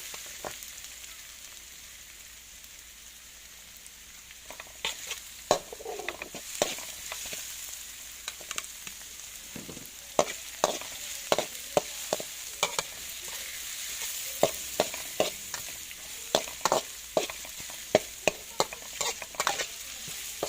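Fresh chives frying in hot oil with a steady sizzle, and a utensil knocking and scraping against the pan as they are stirred. The knocks are sparse at first and become frequent from about four or five seconds in.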